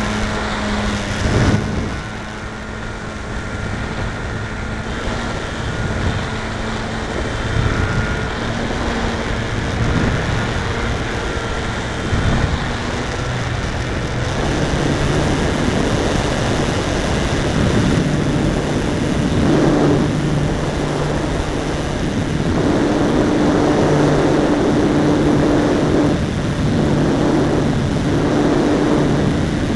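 Brushless electric outrunner motor (RimFire 42-50-100) and propeller of an RC aerobatic plane heard in flight from a camera on the airframe, with air noise over the microphone. It makes a steady pitched hum that changes with throttle, grows louder about halfway through and drops back briefly a few times near the end.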